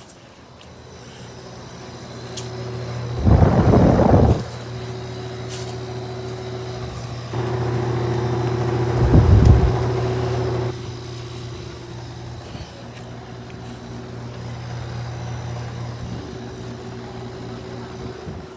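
Air conditioner unit running with a steady mains-pitched hum, growing louder over the first few seconds. Two short, loud rushing bursts come about three and nine seconds in, with a louder stretch of rushing noise between about seven and eleven seconds.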